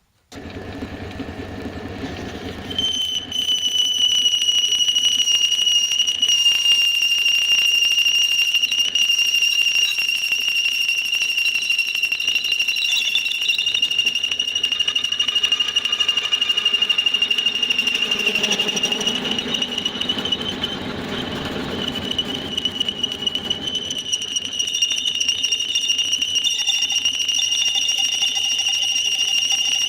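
Homemade belt sander switched on, starting with a rumble. About three seconds in a steady high-pitched squeal sets in and holds while it runs, with a heavier rumble for a few seconds in the middle.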